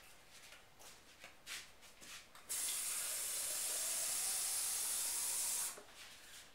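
Water tap turned on, running steadily for about three seconds to fill a glass, then shut off suddenly. It starts about two and a half seconds in, after a few faint knocks.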